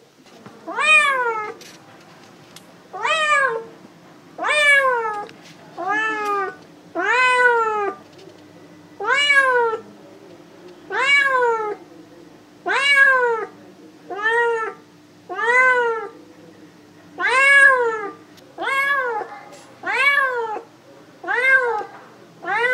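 Domestic cat meowing over and over, about fifteen separate meows each a second or two apart, each one rising and then falling in pitch.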